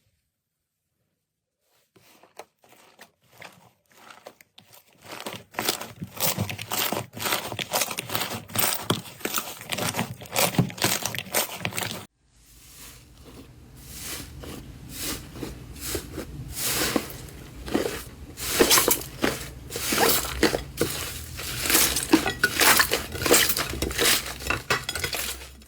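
Slime being squeezed and pressed by hand, giving dense crunchy crackling and popping. It starts about two seconds in, stops abruptly about halfway through, then resumes over a faint low hum.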